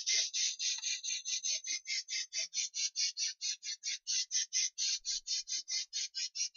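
Games Workshop spray gun spraying primer: a pulsing hiss of air and paint, about six puffs a second, with no break.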